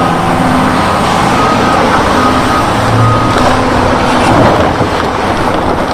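Large Doosan crawler excavator working: its diesel engine running loud and steady under load, with the grinding clatter of rock in the digging bucket.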